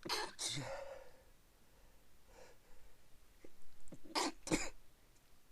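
A person sneezing repeatedly in a fit: a sharp double sneeze at the start, then, after a short pause, two more sharp sneezes about four seconds in.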